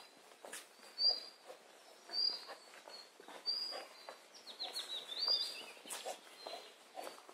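Woodland birdsong: a short high note repeated about once a second, with a quick falling trill about four and a half seconds in. Under it are soft, irregular footfalls on a dirt path.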